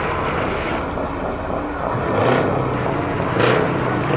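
Heavy truck engine with an open, unmuffled exhaust pipe running loudly. It gives two short louder surges, about two and three and a half seconds in.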